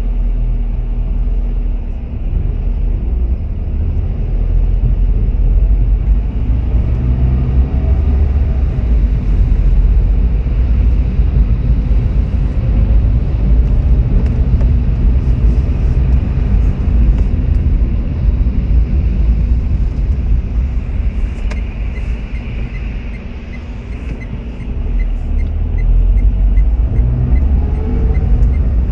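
A car's engine and tyres on wet asphalt, heard from inside the cabin: a steady low rumble that rises and falls with speed and eases briefly as the car slows. About two-thirds of the way in, a light regular ticking of the turn indicator joins it.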